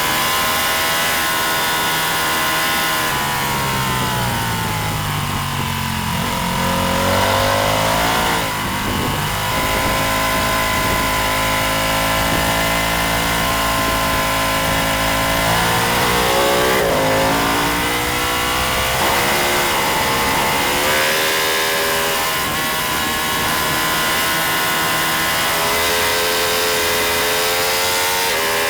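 Racing motorcycle engine under hard use, its pitch falling as it slows and climbing again as it accelerates away, several times over, with long stretches held at high revs.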